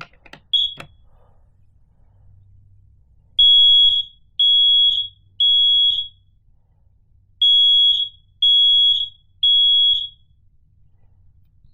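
Smoke alarm being tested, sounding a short chirp and then two rounds of three high-pitched beeps, each about half a second long, with a pause between rounds: the standard three-beep alarm pattern, showing the alarm works.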